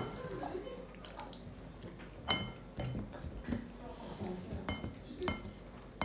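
Scattered clinks and knocks of a toddler's spoon and plastic cup against a bowl while eating, the sharpest about two seconds in with a short ring after it.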